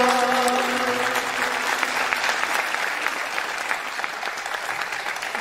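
Concert audience applauding, a dense spread of many hands clapping that slowly eases off. The last held chord of the choir and instruments dies away in the first second.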